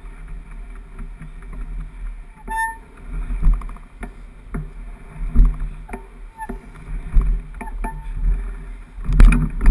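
Mountain bike being pushed uphill over a dirt trail, heard from its handlebar-mounted camera: irregular knocks and rattles from the bike, a few short squeaks, and a low rumble of handling noise. The heaviest clatter comes near the end.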